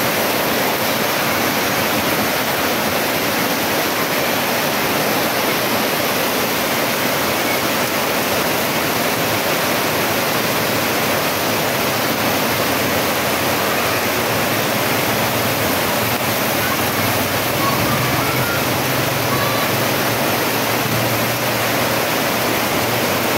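Heavy rain pouring steadily, a dense, even hiss of water that never lets up. A faint low hum joins about two-thirds of the way through.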